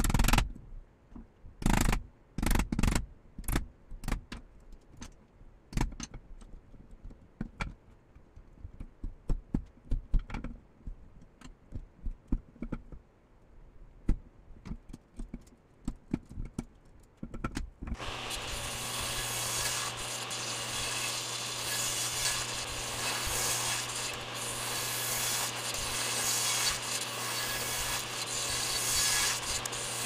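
Hammer blows on a wood chisel chopping a mortise into a fir table leg: a few hard strikes and many lighter taps, spaced apart. About 18 seconds in, an electric table saw's motor is running steadily with a low hum.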